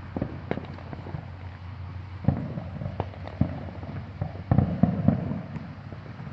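Distant aerial firework shells bursting: a string of sharp booms at irregular intervals, loudest in a quick cluster about four and a half to five seconds in, over a low steady rumble.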